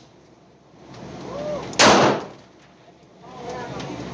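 One shot from a Colt Detective Special .38 snub-nosed revolver fired double action, about two seconds in, a sharp report that dies away within a fraction of a second.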